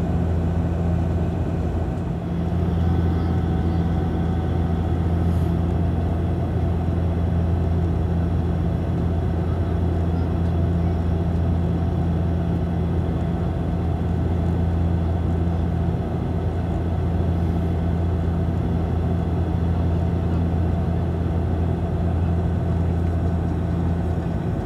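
Cabin noise of a Bombardier Q400 turboprop airliner in flight: a steady low drone from its six-bladed propellers and PW150A turboprop engines over a constant rush of airflow.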